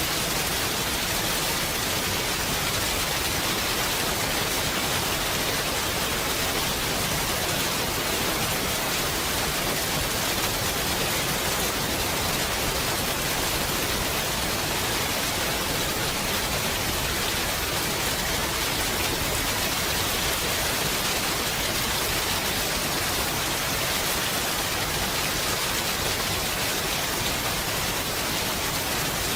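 Steady, even rain in a forest, a dense hiss of falling drops with no single drops or gusts standing out.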